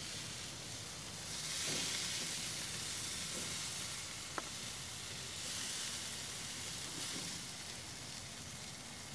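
Burgers, ribs and chicken wings sizzling on a barbecue grill grate: a steady hiss that grows louder about a second and a half in, with one small click near the middle.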